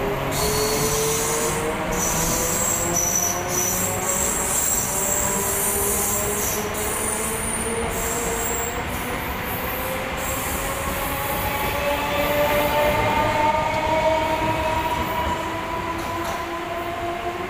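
Electric multiple unit local train pulling out and gathering speed: its electric traction motors give a whine that rises slowly in pitch, over the rumble of the coaches. High wheel squeal comes and goes in the first half.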